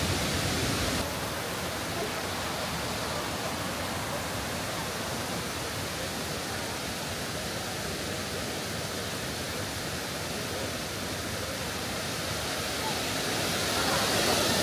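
Rushing water of a tiered waterfall pouring into pools, a steady wash of noise. It dips slightly about a second in and grows louder near the end.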